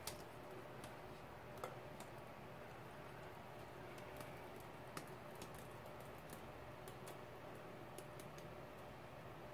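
Faint, scattered light clicks and taps from handling a freshly poured canvas and the sheet of paper just peeled off it, over quiet room hiss.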